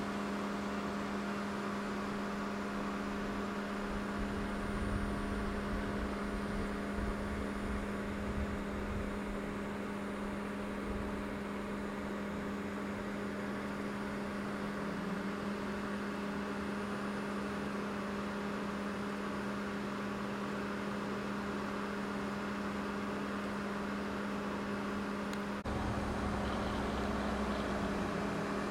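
A steady outdoor hum with a constant low tone and a hiss. Low wind rumble buffets the microphone unevenly in the first third. The sound changes abruptly about 26 seconds in, and the low rumble is louder after that.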